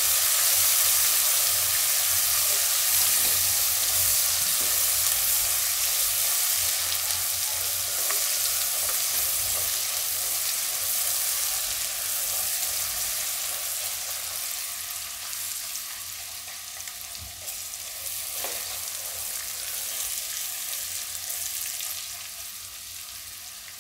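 Sliced onions frying in hot oil in a kadai, a steady sizzle, stirred now and then with a silicone spatula. The sizzle slowly dies down toward the end.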